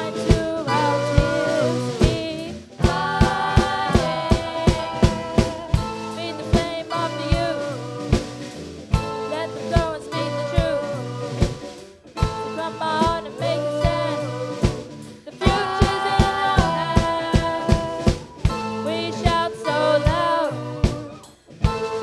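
Rock band playing live: a sung lead vocal over keyboard, electric guitars and a drum kit keeping a steady beat, with a brief drop-out just before the end.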